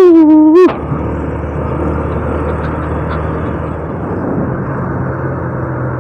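Honda Revo 110 motorcycle's single-cylinder four-stroke engine running at a steady speed, with road and wind noise. Right at the start comes a loud pitched blast, under a second long, whose pitch dips slightly and then rises as it ends.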